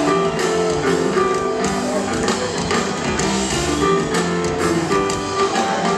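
Live rock band playing, with a guitar picking out a run of short notes over bass and drums, at a steady loudness.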